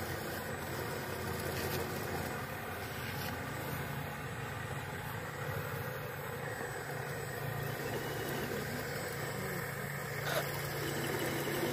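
Remote-control model excavator's motor running steadily as it digs and swings its bucket, the hum growing a little stronger partway through. A short knock about ten seconds in as the bucket tips its load of soil into the model dump truck.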